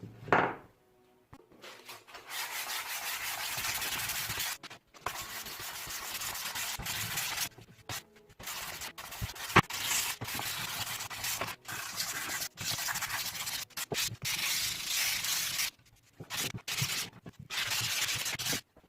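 Sandpaper rubbed by hand over a wooden part in repeated back-and-forth strokes of varying length with short pauses between them, after a single thud near the start.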